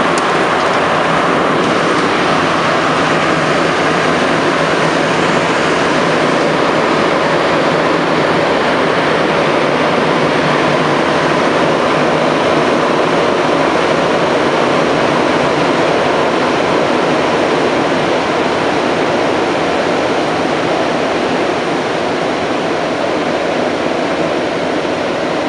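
MR-73 rubber-tyred metro train running steadily through a tunnel, heard from inside the passenger car: a loud, even rolling rush with a faint low hum beneath it.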